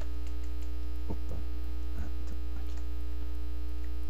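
Steady electrical mains hum picked up by the recording, with a few faint keyboard clicks between about one and three seconds in.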